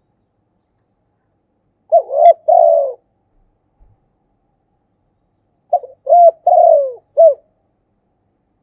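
Spotted dove cooing: two short phrases about four seconds apart, the first of two or three notes, the second of about five, each coo falling in pitch.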